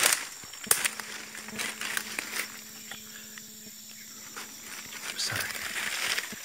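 Footsteps crunching and rustling through dry leaf litter on a forest floor, a few uneven steps, then a pause of a second or two near the middle before the walking resumes.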